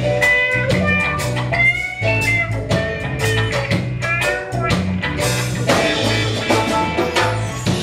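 Live reggae band playing an instrumental passage: a repeating bass line and drum kit under a lead guitar melody with sliding notes.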